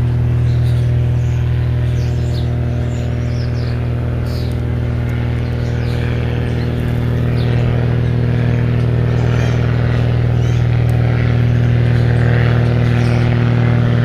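A loud, steady, low machine hum, with birds chirping at intervals over it.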